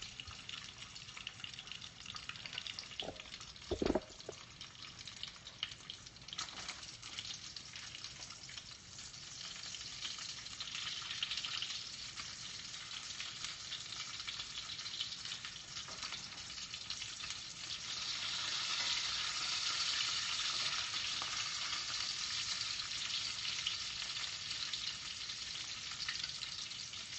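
Bacon sizzling and spitting as it fries in a pan, a steady hiss that grows louder about halfway through. Two short bumps sound about three and four seconds in.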